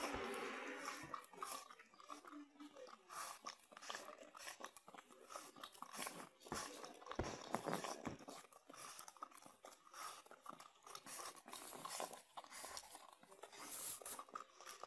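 A pug licking out a plastic dessert cup: a quiet, irregular run of quick wet licks and mouth smacks, its tongue clicking against the plastic.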